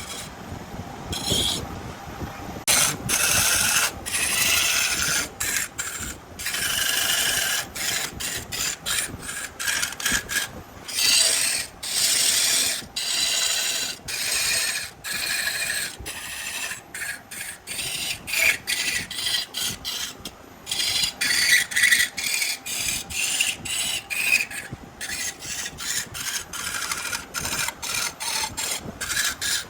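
A tool working wood spinning on a woodturning lathe: a hissing, rasping noise in many short passes broken by brief gaps.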